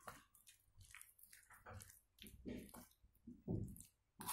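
A hand squelching through thick gram-flour batter with grated potato in a bowl: faint, irregular wet squishes.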